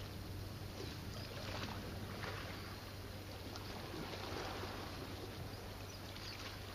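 Small waves lapping and washing against the rocks of the shore, in soft swells every second or so, over a steady low hum.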